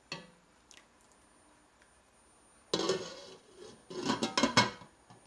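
Cookware and kitchen utensils clattering: a single click, then a knock about three seconds in and a quick run of clanks a second later.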